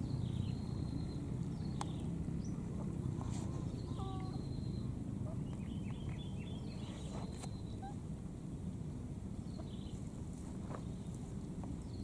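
Outdoor ambience: a steady low rumble of background noise with a few short, high chirps and squeaks scattered over it, including a quick run of them about six seconds in.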